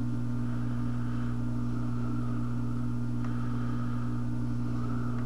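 Steady low electrical hum from the workbench equipment, with a faint hiss above it and a faint tick about three seconds in.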